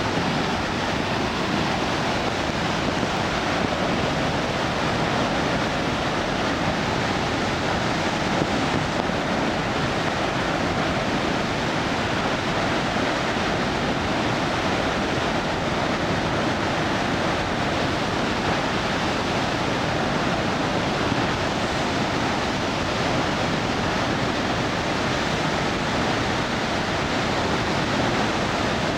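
Waterfall pouring heavily, swollen after a typhoon's rains: a loud, steady rush of water.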